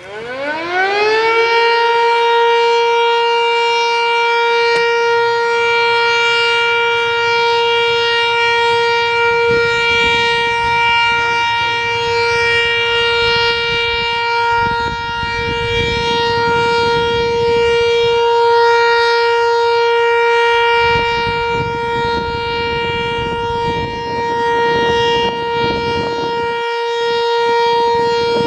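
Sentry 3V8-H outdoor warning siren winding up, its pitch rising quickly over about a second and a half, then holding one steady tone: the steady alert signal of a siren test.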